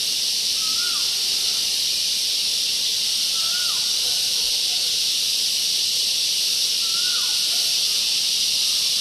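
A steady, high-pitched drone of insects in tropical vegetation, with a bird giving a short call that drops in pitch about every three seconds.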